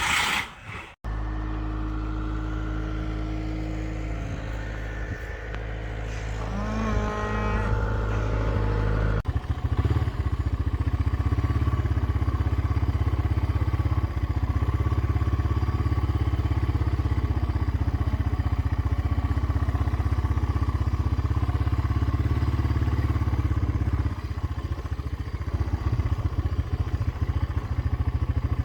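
A cow moos once about seven seconds in, over a steady low rumble. About nine seconds in the sound cuts to a louder steady low rumble that runs on.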